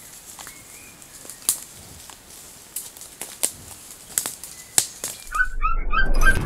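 Field audio of a red deer stag grazing on the forest floor: a faint hiss with scattered sharp clicks and rustles. About five seconds in it cuts to a sound effect of quick bird chirps and a loud, swelling rush of flapping wings.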